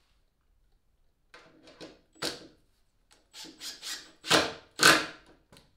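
Cordless drill-driver running screws into the plywood transom in a series of short bursts, screws biting and spinning into wood, the last two the loudest. The screws are going back into their old holes.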